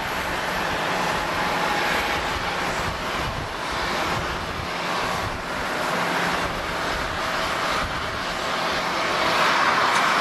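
Gulfstream business jet's twin rear-mounted turbofan engines running at taxi power: a steady jet rush with a thin whine, growing louder near the end as the jet taxis closer.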